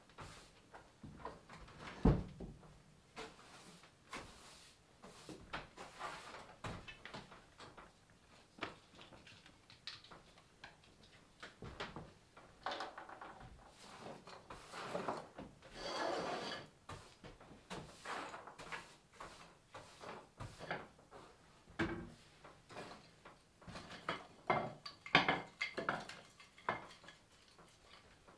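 Broom sweeping a wooden plank floor: irregular scratchy swishes of the bristles, with a sharp knock about two seconds in.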